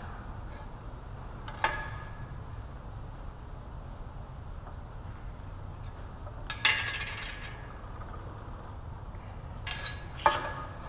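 Three sharp metallic clinks of a steel combination square knocking against steel square tubing as it is set in place, about a second and a half in, near the middle and near the end; the middle one rings briefly and the last is the sharpest. A steady low hum runs underneath.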